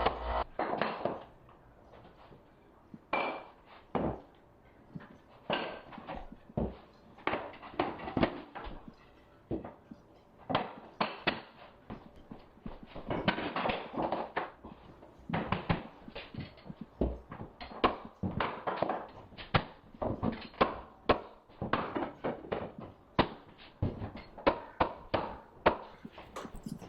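Hardwood floorboards knocking and tapping against each other and the floor as they are handled and fitted, in an irregular run of sharp wooden knocks, several a second.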